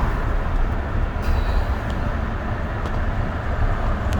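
Steady low rumble of road traffic, without a break or a sharp change.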